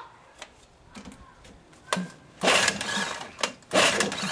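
Bursts of mechanical rattling and clicking from hand work on an old Evinrude 6 hp outboard's powerhead, starting about two seconds in and coming in two loud runs about a second long.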